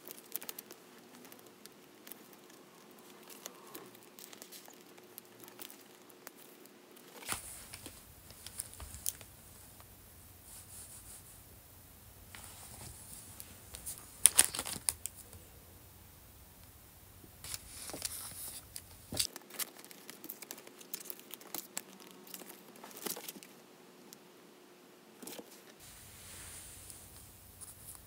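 Clear plastic binder pockets crinkling and rustling as photocards are handled and slid into them, with scattered small clicks and taps; the loudest rustle comes about halfway through.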